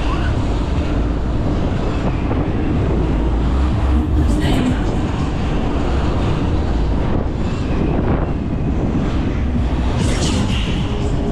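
Heavy wind rush and low buffeting on the microphone riding a booster ride's rotating arm, with brief louder whooshes about four and a half seconds in and again near the end.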